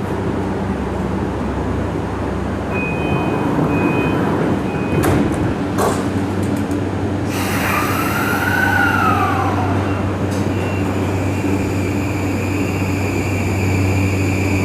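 Electric commuter train at the platform as it pulls out: a steady electric hum, a few short beeps and two sharp knocks, then a motor whine that rises and falls and settles into a steady high tone.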